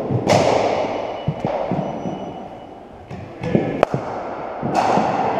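Sharp knocks and thuds of cricket ball and bat play in an indoor net hall. There is a loud knock just after the start and another near the end, each leaving a ringing echo in the hall, with lighter taps and one sharp crack between them.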